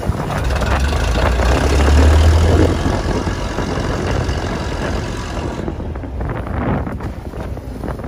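Small fishing boat under way in strong wind: the engine running, wind buffeting the microphone with a heavy low rumble in the first couple of seconds, and water rushing along the hull. The high hiss drops away after about five and a half seconds.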